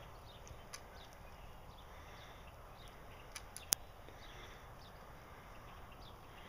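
Faint scattered knocks and scuffs of a child climbing a tree, her shoes and hands on the trunk and branches, with a few sharper clicks a little past the middle.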